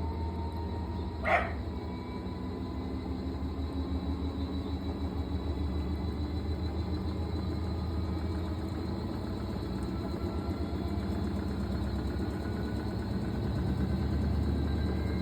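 Fisher & Paykel MW511 washing machine running, its motor whine rising slowly and steadily in pitch over a low hum as the drum speeds up. A single dog bark about a second in.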